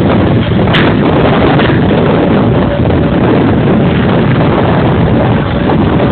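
Tractor running steadily and loudly on the bottom of a barge, with one sharp click a little under a second in.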